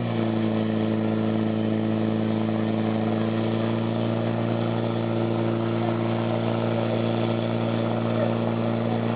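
Portable fire pump's engine running steadily at a constant high speed.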